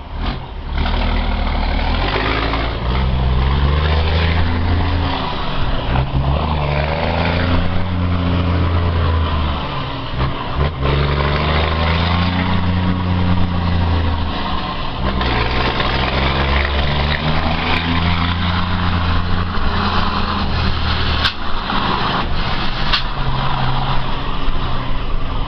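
Scania R420 truck's inline-six diesel with a straight-through exhaust, pulling away and accelerating through the gears: the engine note rises, drops back at each shift, and rises again about four times. A couple of sharp clicks come near the end.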